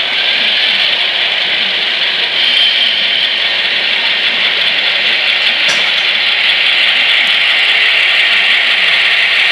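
HO-scale EMD F7A model locomotive's onboard sound decoder playing a steady diesel engine sound through its small speaker, high and tinny with almost no bass, as the model runs along the track. A single short click about six seconds in.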